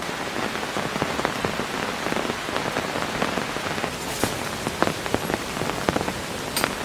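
Heavy rain falling, a steady rush with many individual drops striking close by; the strikes turn sharper and louder near the end.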